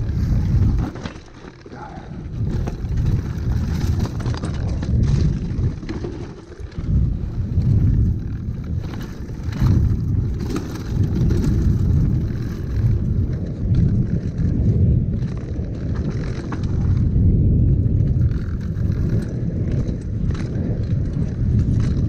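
Mountain bike ridden fast down a rough dirt trail, heard from a rider-mounted action camera: a constant low rumble of wind and tyres, with frequent clatters and knocks from the bike jolting over bumps.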